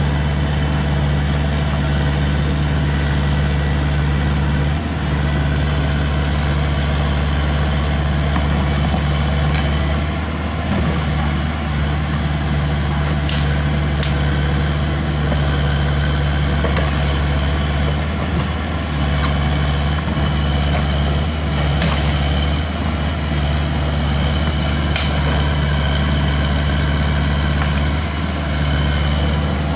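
A Caterpillar excavator's diesel engine runs steadily while it digs. Its low hum dips briefly a few times, and a few faint clicks come through.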